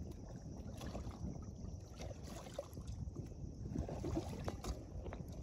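Wind rumbling on the microphone over moving seawater, with a few faint scattered clicks.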